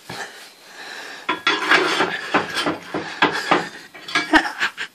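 Clattering and scraping of logs and metal being handled at a wood-burning stove: a quiet moment, then a busy run of irregular knocks and scrapes starting about a second in.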